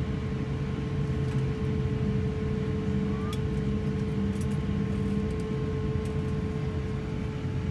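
Steady airliner cabin noise as the jet taxis slowly onto its gate stand: a low rumble with a constant hum, and a few faint ticks.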